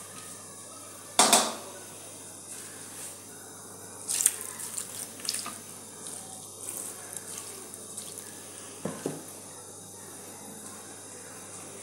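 A ladle or serving spoon knocks and clinks against dishes as broth is ladled over couscous, with liquid splashing. The loudest is one sharp knock about a second in, then a cluster of smaller clinks and splashes, and a double knock near the end.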